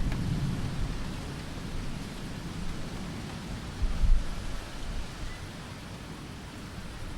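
Steady rain hiss during a thunderstorm, with a low thunder rumble dying away in the first second or so and a brief low thump about four seconds in.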